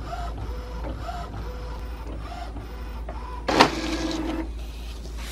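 Desktop printer running as it feeds and prints a page, in repeated mechanical strokes over a steady low hum, louder for about a second starting about three and a half seconds in.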